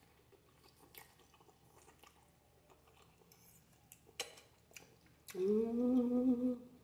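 Soft chewing and mouth clicks of a woman eating spaghetti with sausage, with a sharper click about four seconds in. Near the end comes one sustained closed-mouth "mmm" hum, rising briefly and then held for over a second.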